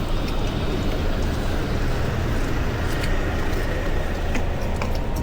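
Steady low rumble of a moving vehicle, with a faint steady whine above it and a few light clicks.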